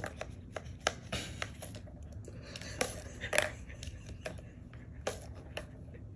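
Kitten pawing and batting at a hard plastic ball-track cat toy: irregular sharp clicks and taps of paws and claws striking the plastic, the loudest about three and a half seconds in.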